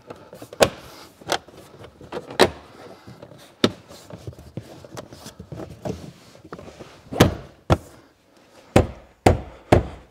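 Plastic interior side trim panel in a car footwell being fitted back, a series of sharp knocks and clacks at irregular intervals as it is pushed and hooked into place, with light rubbing of plastic in between.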